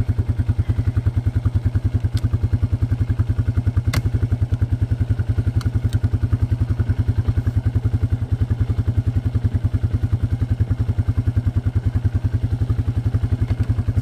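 ATV (four-wheeler) engine running at a steady, even pace while being ridden, with a few light clicks and knocks.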